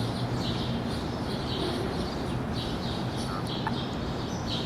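Birds chirping, short high calls repeating about twice a second, over a steady background hiss and low hum.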